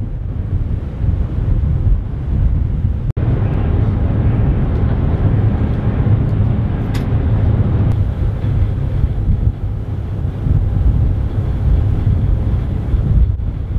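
Wind buffeting the microphone over the steady low rumble of a ferry under way.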